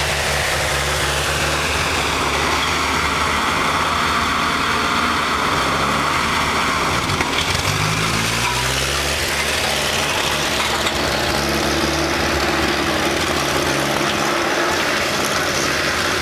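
Tractor engine running steadily, its pitch rising briefly about eight seconds in.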